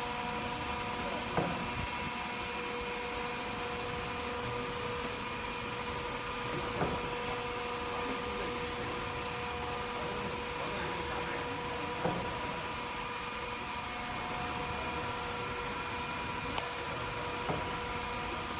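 Wheelbarrow tray edge-curling machine running: a steady mechanical hum with several whining tones, broken by a short sharp knock every few seconds, five in all.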